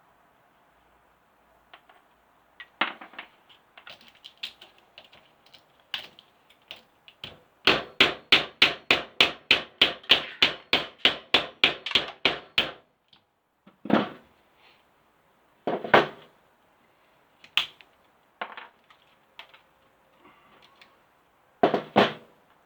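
Hammer blows on a 100 amp circuit breaker, knocking it apart to free the brass and copper inside: scattered single knocks, then a fast run of about five blows a second for about five seconds, then a few more single blows.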